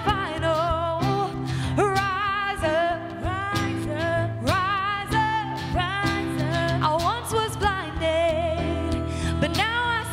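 Church worship band performing a pop-style song, a singer holding notes with vibrato over a steady band accompaniment with drums.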